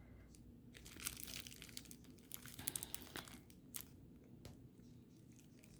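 Faint crinkling and rustling of packaging being handled, with scattered light clicks and taps that die away after the first few seconds.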